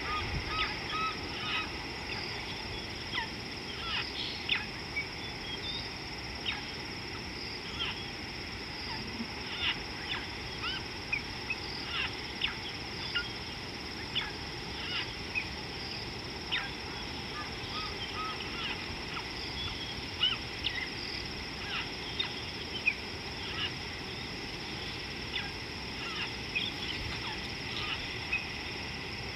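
Wild birds calling with many short, scattered chirps and calls over a steady high-pitched hum.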